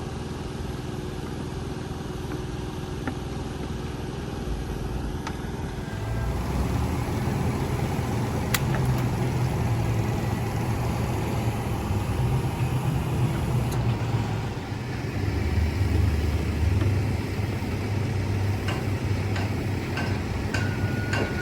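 An engine idling steadily, its low rumble growing louder about six seconds in, with a few sharp clicks over it.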